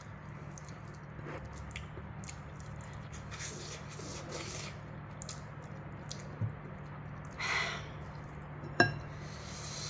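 Eating by hand: quiet chewing, squishy mouth noises and small clicks, with two short breathy hisses around the middle and shortly before the end, and one sharp click near the end, over a steady low hum.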